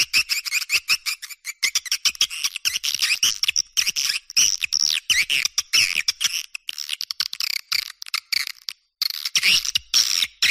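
Swiftlet lure recording: a flock of edible-nest swiftlets chittering in fast, high-pitched chirps and twitters, with a brief pause near the end. This is the kind of call track played at swiftlet houses to draw flocks in to roost and nest.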